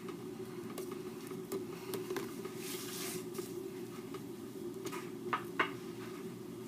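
Light handling noises over a steady low hum: a short papery rustle about halfway through, a few faint taps, and two small clicks close together near the end, from fingers handling a paper cutout on a pack of gum.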